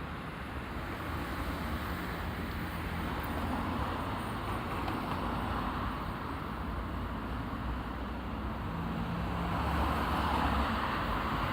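Road traffic at an intersection: a steady wash of car engines and tyre noise, with low engine hum, swelling a little as a vehicle passes near the end.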